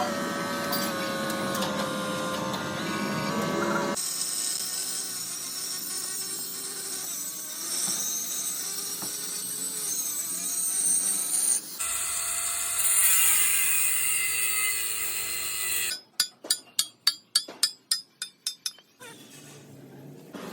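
Workshop sounds in several short cut-together sections: a power tool running, then a quick run of about a dozen sharp knocks, about four a second, near the end.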